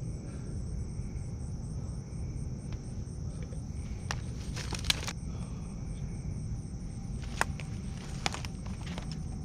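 Night chorus of crickets or katydids, a steady high trill with a regular pulsing, over a steady low rumble. A few sharp clicks and rustles stand out about four to five seconds in and again near seven and eight seconds.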